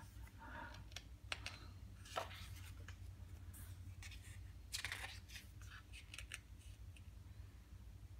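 Pages of a large photo book being handled and turned: a few faint paper rustles and light taps, the most around five seconds in.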